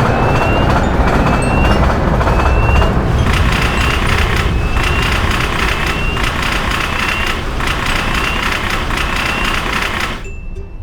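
Railroad crossing warning signals sounding as a train passes. At first a short rising beep repeats about every half-second; from about three seconds in, a steadier ringing with brief breaks takes over. All of it cuts off suddenly near the end.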